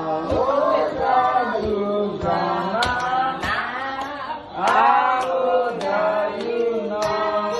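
A group of voices singing a party song together, with hands clapping along to the beat.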